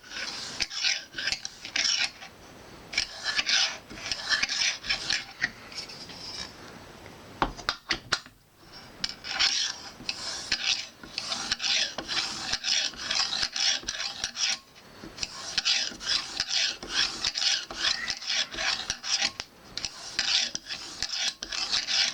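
Knife edge drawn repeatedly along a Lansky leather strop hone, making quick rasping strokes in runs, with a short break about a third of the way in. This is the final stropping that polishes the freshly honed edge.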